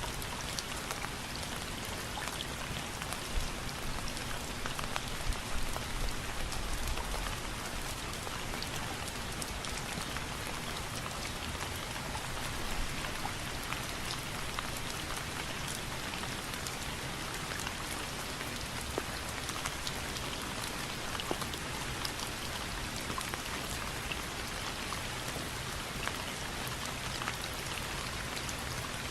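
Steady rain falling, with many single drops ticking sharply on a hard surface and a short low rumble about six seconds in.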